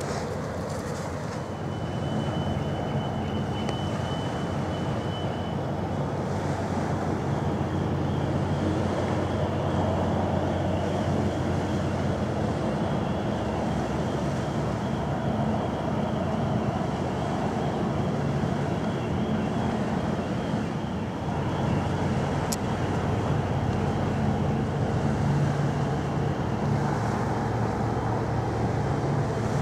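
Wightlink hybrid car ferry passing close by, its engines making a low, steady drone over wind and water noise. There is a single sharp click late on.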